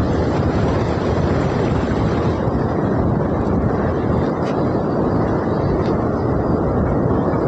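Wind rumbling steadily on the microphone over heavy surf breaking on the shore.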